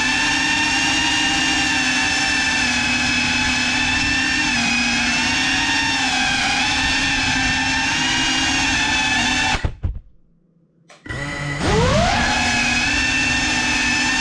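Small FPV drone's electric motors and propellers whining steadily. About ten seconds in the motors cut out, and a second and a half later they spin back up with a rising whine.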